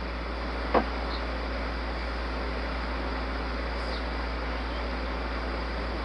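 Steady garage background noise with a constant low hum, like a running fan, and a single light knock about a second in as parts are handled.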